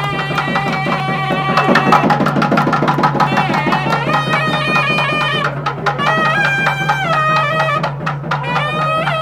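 Traditional Indian music: a melody of long held notes that step up and down, over rapid hand-drum strokes.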